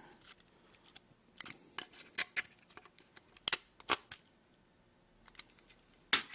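Sharp metal clicks and light scrapes of a hardened pry tool working the bent tin tabs that hold a tin-plate toy locomotive's smokestack bezel. The clicks come singly and irregularly, with quiet gaps between.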